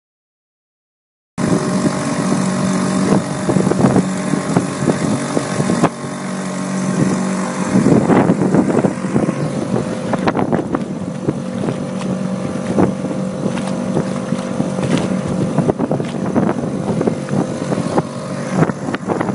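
Handy Billy motorboat's engine running steadily under way, starting abruptly after about a second and a half of silence, with wind on the microphone and scattered short knocks.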